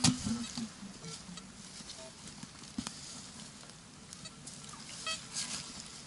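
Footsteps and rustling in frozen leaf litter under a thin snow cover, with a sharp knock right at the start and a few brief faint tones later on.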